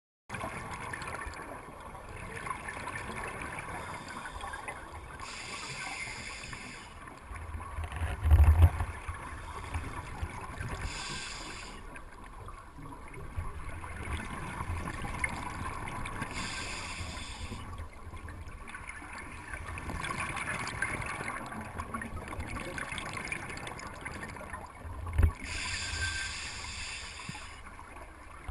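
Scuba diver breathing underwater, heard through a GoPro's underwater housing: exhaled bubbles from the regulator burst out every five or six seconds over a steady low hiss. Two dull thumps, the loudest sounds, come about eight seconds in and again later.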